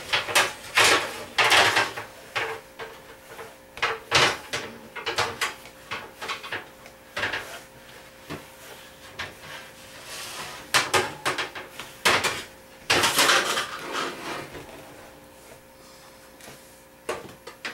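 Metal cookie sheets and pans clattering and scraping in a pull-out wire-basket kitchen drawer as they are pried out with a spoon, with the drawer sliding. The knocks and clangs come in bursts, fewer and quieter near the end.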